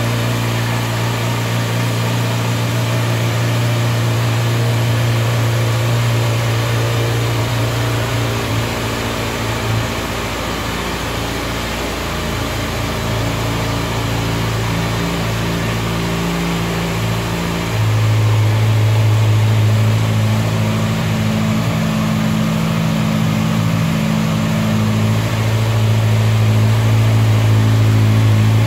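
Kawasaki ZX-6R's 600 cc inline-four engine idling steadily through its exhaust. A little over halfway through, the note steps up slightly and gets a little louder, then holds steady again.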